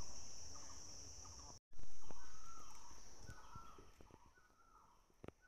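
Forest ambience dominated by a steady high-pitched insect drone, with a bird giving a series of short calls in the second half. The sound cuts out and restarts abruptly about a second and a half in, and there are a few faint clicks near the end.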